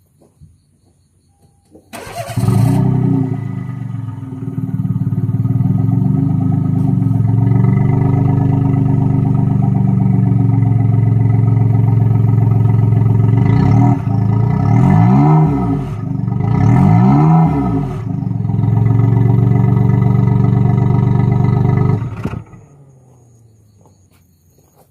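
Daihatsu Move L175S kei car's 660 cc three-cylinder engine heard at the exhaust. It starts about two seconds in, idles steadily, is revved up and back down twice in the middle, then is switched off a few seconds before the end.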